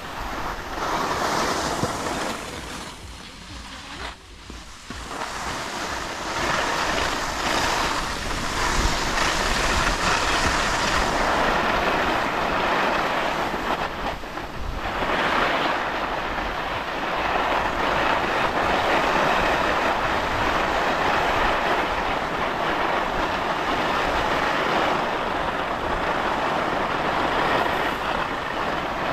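Skis sliding and scraping over packed piste snow, a steady rushing scrape that thins out for a couple of seconds about four seconds in and dips again briefly near the middle.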